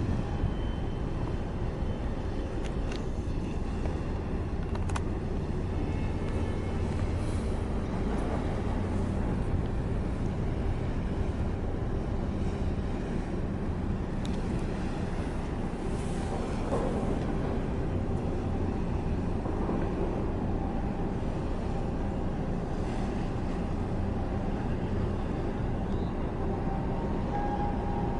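Steady low outdoor rumble with a haze of noise over it, unchanging in level, with a few faint clicks in the first five seconds and a steady tone coming in near the end.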